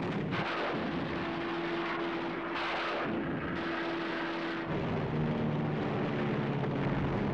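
Propeller fighter plane engine droning over a dense rumble. A steady tone runs through the first part and gives way to a lower one about two-thirds in.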